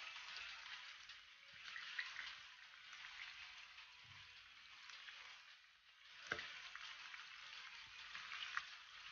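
Floured sturgeon pieces sizzling and crackling in hot oil in a frying pan. The sizzle dips briefly, then a sharp click about six seconds in and the sizzling picks up again as another piece is laid into the oil.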